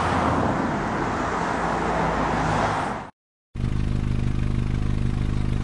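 Motor vehicle sounds in two abruptly cut pieces. First a loud, even rush of a car on the move for about three seconds. Then, after a brief cut to silence, a steady low engine hum with a fast, even pulse, like an engine idling.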